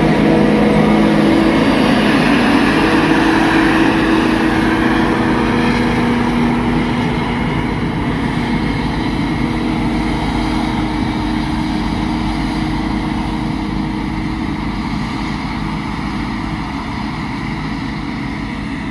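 Claas Jaguar 960 forage harvester and the tractor hauling alongside it, running while chopping whole-crop barley and oats: heavy diesel engine noise mixed with the rush of the cutting and chopping gear. It grows slowly fainter as the machines move away.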